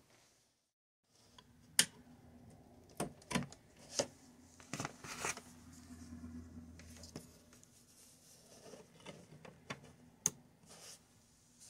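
Cables being handled and plugged into the ports of a mini PC: rustling with several sharp plastic clicks, one of them about ten seconds in as an Ethernet plug is pushed into its port.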